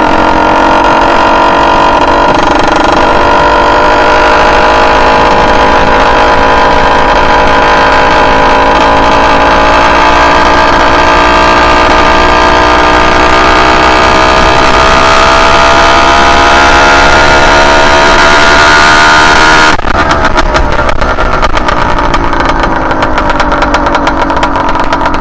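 Motorized bicycle's two-stroke engine running under steady throttle, its pitch slowly climbing for about twenty seconds. Then the throttle comes off suddenly and the engine drops to an uneven, choppy note as it slows. The engine is jetted very rich for break-in.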